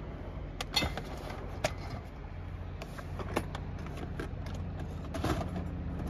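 A plastic storage bin and packaged food being set back onto shelves and among plastic drawers, giving a few sharp knocks and rattles over a steady low hum.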